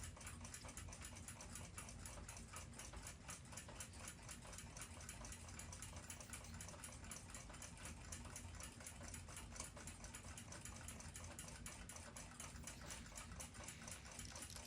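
A mechanical clock ticking faintly, quick and even at about five ticks a second, over a low steady hum.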